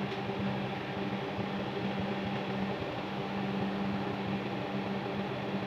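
Steady mechanical hum with a low drone, from machinery running in the workshop.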